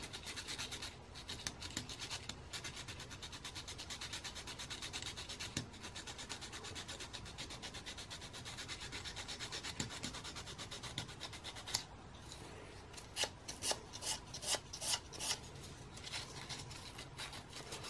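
Fine sandpaper rubbing back and forth in quick, even strokes on the carbon brushes of an electric trolling motor, shaping the brush ends to the curve of the rotor. About twelve seconds in the steady strokes give way to a few separate, sharper scrapes.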